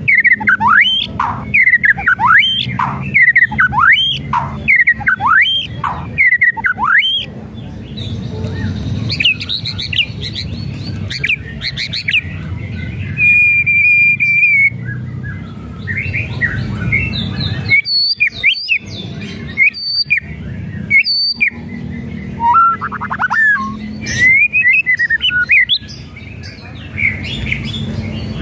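White-rumped shama (murai batu) singing: a fast run of repeated whistled notes sweeping up and down, then higher phrases and one held steady whistle, followed by a few sharp cracking 'kretekan' notes. A steady low hum runs underneath.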